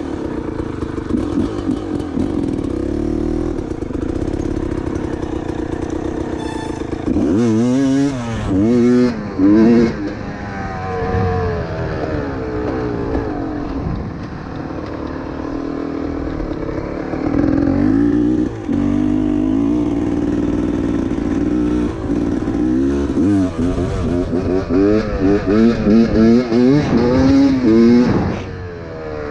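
Dirt bike engine running close to the rider, steady for stretches and revved hard in quick bursts, first about seven seconds in and then in a run of repeated revs near the end as the bike rides across the field.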